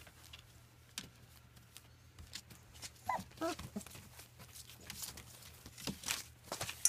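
German Shepherd puppies eating kibble from steel bowls set on newspaper: scattered clicks, crunches and rustles, with two short puppy whimpers about three seconds in.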